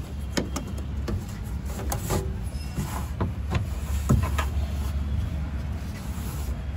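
Car interior trim being handled: the plastic pillar trim and fabric roof liner clicking, creaking and scraping as they are pulled down, in irregular short knocks, the sharpest about four seconds in, over a steady low rumble.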